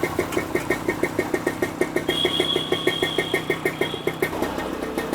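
A small engine running steadily with an even, rhythmic beat of about six pulses a second, with a faint high whine for a couple of seconds in the middle.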